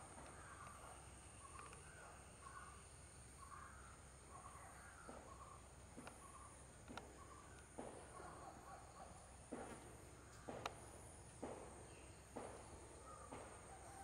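Faint outdoor background of soft repeated chirps, with sharp clicks roughly once a second from about five seconds in.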